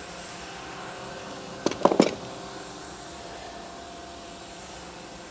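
Steady mechanical hum of an idle machine tool, with three quick metallic knocks close together about two seconds in as a heavy steel blank is handled in the lathe's four-jaw chuck.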